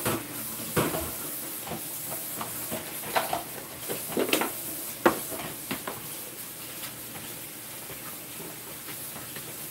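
A spoon scraping and knocking against bowls as thick potato salad is stirred and dressing is scooped in: a scatter of short scrapes and clinks over the first half or so, then only a steady background hiss.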